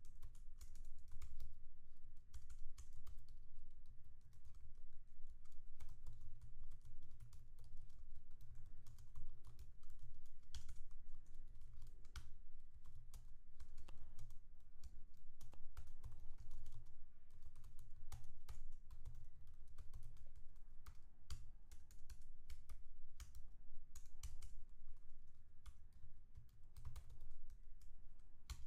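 Typing on a computer keyboard: quick, irregular key clicks in runs with short pauses, over a low steady hum.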